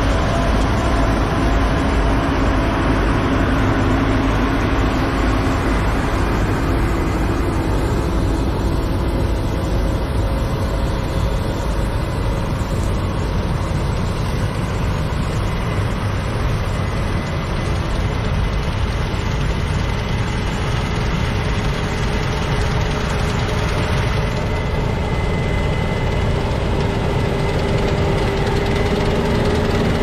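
Case IH combine harvester running under load while cutting wheat: a steady, loud drone of engine and threshing machinery, with a humming tone that grows stronger over the last few seconds as the header passes close by.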